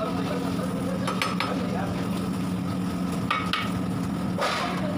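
A few short knocks and one scrape of cooking utensils against a pot, over a steady low hum.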